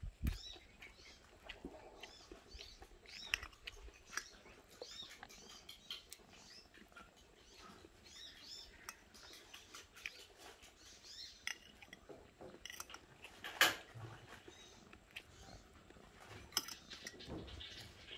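Metal spoon clicking and scraping against a plate of rice during eating, with soft chewing; one sharper clink comes about two-thirds of the way in.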